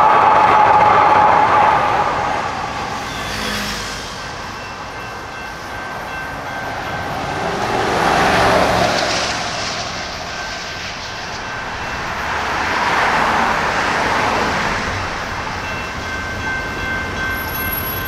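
Light rail train at a grade crossing, its horn sounding at the start. The train noise swells twice, about eight and thirteen seconds in.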